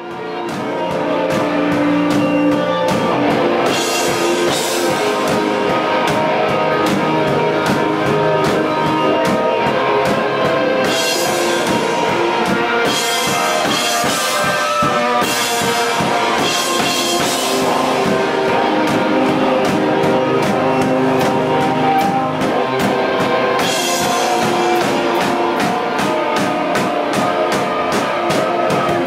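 A live rock band playing loudly: electric guitar over a drum kit, with stretches of crashing cymbals. The sound fades in over the first second.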